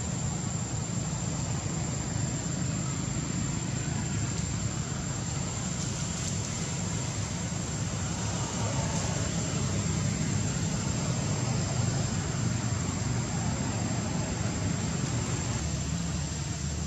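Steady background rumble and hiss, unchanging in level, with a thin constant high-pitched whine over it.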